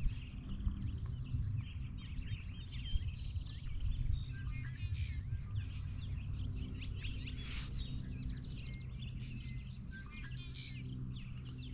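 Several small birds chirping and trilling over a steady low hum.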